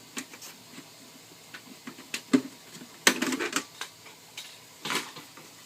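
Handling clicks and knocks from an Aquabot Turbo robotic pool cleaner as its filter bag is taken out. There is a sharper knock about two and a half seconds in, a quick clatter just after three seconds, and another knock near the end.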